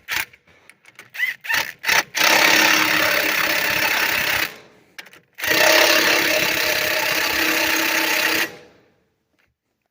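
Handheld power tool tightening bolts on a corn head's gathering-chain assembly: a few short trigger blips, then two steady runs of about two and three seconds with a short stop between, the second winding down near the end.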